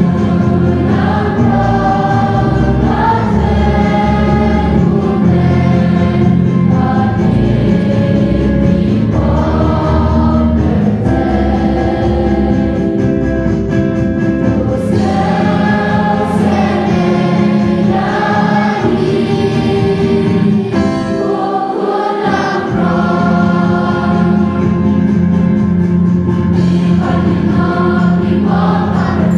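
Church choir singing a hymn, the sung notes changing every second or two over a steady low accompaniment.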